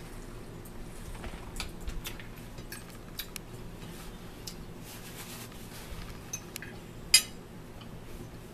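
Forks clicking and scraping against dinner plates: scattered light clicks, with one sharper click about seven seconds in.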